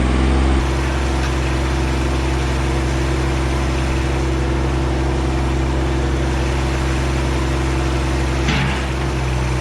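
Kubota BX24 sub-compact tractor's three-cylinder diesel engine running steadily while working the front loader. Its note shifts about half a second in, and a short noisy burst comes near the end.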